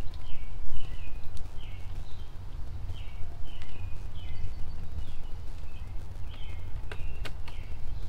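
Wind buffeting the microphone with a low, uneven rumble. Over it a bird repeats short, falling chirps about twice a second, and a couple of sharp clicks come near the end.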